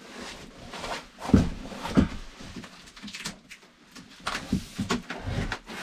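Heavy boxed exercise bike being shifted and wrestled inside its cardboard box: a few dull thumps and knocks, the two loudest about a second and a half and two seconds in, with lighter knocks near the end.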